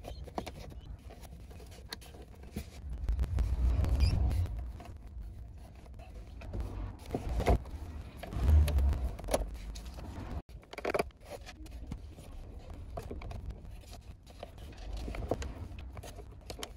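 Hard plastic car interior trim being handled and clipped into place: scrapes, clicks and knocks of the centre console pieces. Heavier low thumps come about three to four seconds in and again near nine seconds.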